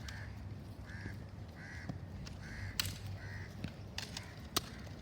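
A crow cawing five times in a row, the short harsh calls spaced a little under a second apart. A few sharp clicks follow near the end.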